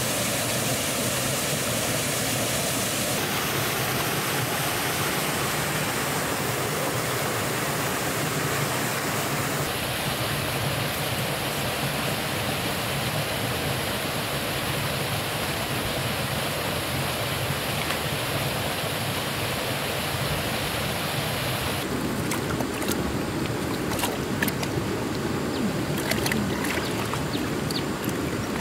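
Steady rush of flowing water from a small waterfall and a river current, its sound changing abruptly three times. In the last several seconds the rush drops back and small splashes and clicks of hands working in shallow water at the bank come through.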